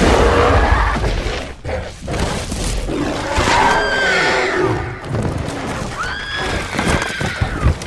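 Monster-fight film soundtrack: a deep roar and crashing at the start, then a woman's high screams, one near the middle and another about six seconds in.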